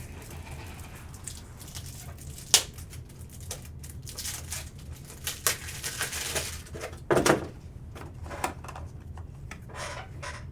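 Trading cards and plastic card holders being handled on a table: scattered rustling and light clicks, a sharp tick about two and a half seconds in and a louder plastic clack about seven seconds in, over a low steady hum.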